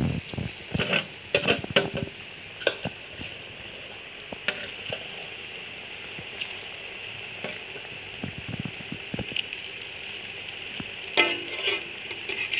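Gram-flour batter pakoras sizzling steadily as they deep-fry in hot oil in an iron karahi. Sharp metal clinks and taps from a spatula in the wok come in the first couple of seconds and again near the end.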